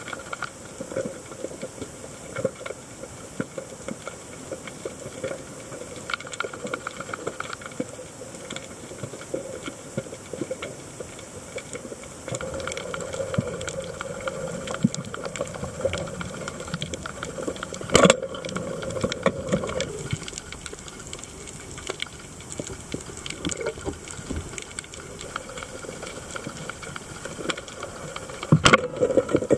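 Underwater reef ambience through the camera: a steady dense crackling and hiss. Two sharp loud cracks stand out, one midway and one near the end.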